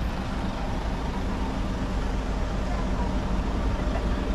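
Steady low engine rumble with a constant hum.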